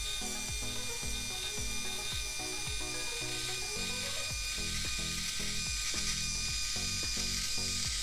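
ION automatic crimper iron working a section of hair, its mechanism making a steady rhythmic ratcheting click, about two or three clicks a second.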